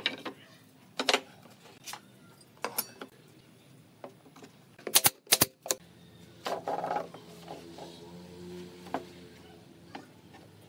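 Wooden strips knocking and clacking as they are picked up and laid down on a wooden workbench. Two sharp, loud cracks come close together about five seconds in.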